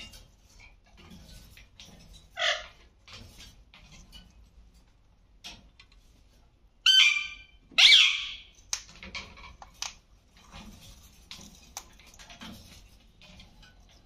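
Alexandrine parakeets calling: one short call a couple of seconds in, then two loud, harsh squawks about a second apart past the middle. Faint clicks and taps lie in between as the birds feed at a steel bowl.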